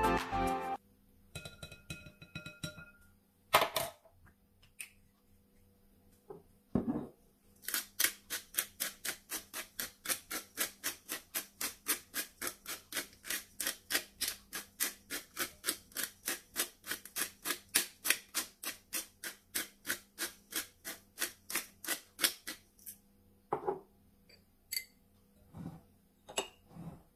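Pepper mill grinding black pepper, twisted by hand: an even run of crunchy clicks, about three or four a second, that starts about 8 seconds in and stops about 15 seconds later. A few single knocks and clinks of bowls and utensils come before and after it.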